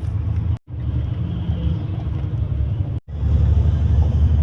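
Loud, steady low rumble, cut off abruptly twice by edits, about half a second in and about three seconds in.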